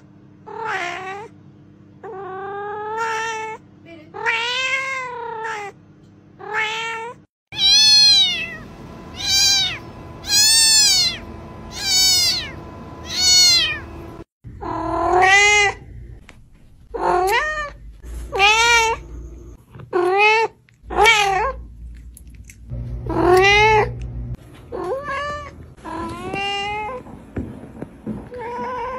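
Domestic cat meowing repeatedly: a string of some twenty separate meows, each rising and falling in pitch. Several recordings are spliced one after another, with a run of higher-pitched meows in the middle.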